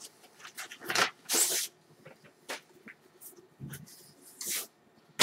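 Package being unwrapped by hand: short bursts of paper or plastic wrapping rustling and tearing, the loudest about a second and a half in.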